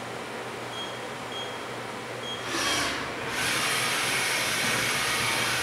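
Axes of a Southwestern Industries Trak LPM CNC vertical machining center moving at rapid traverse to a ball lock position: a brief move a little before the middle, then a longer run of about two seconds that stops near the end, over the machine's steady hum.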